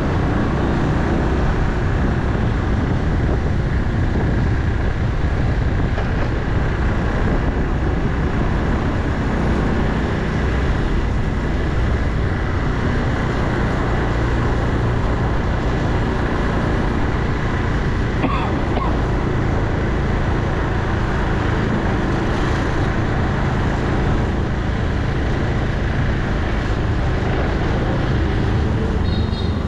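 Motorbike engine running steadily under way, with wind and road noise.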